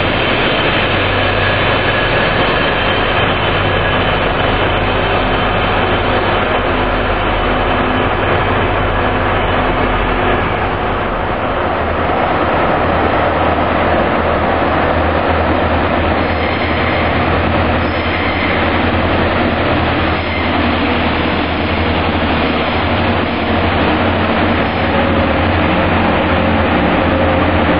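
Diesel trains running in a station: a steady low diesel engine hum runs throughout. From about ten seconds in, a diesel multiple unit moves slowly in along the platform.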